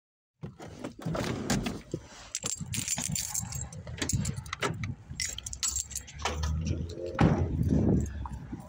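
Keys jangling and clinking, with irregular knocks and rustling of a hand-held phone as someone gets out of a car and walks, over a low rumble.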